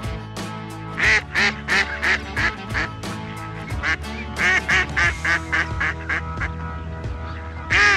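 Background music with a duck quacking over it in two quick runs of short calls, about three or four a second, the first starting about a second in and the second near the middle.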